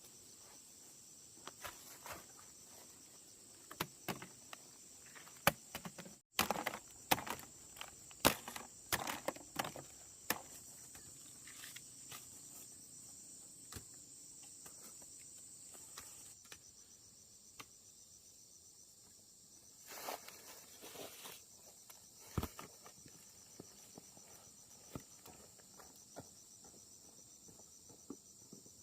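Steady high-pitched chirring of insects, with scattered sharp clicks and knocks over it, busiest about six to ten seconds in and again around twenty seconds in.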